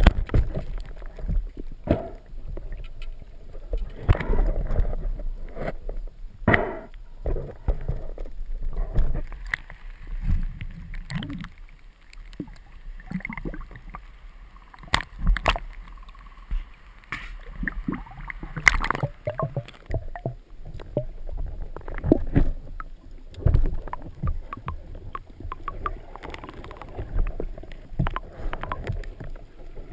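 Water sloshing and splashing at the surface, with irregular knocks and bumps over a low wash of water noise.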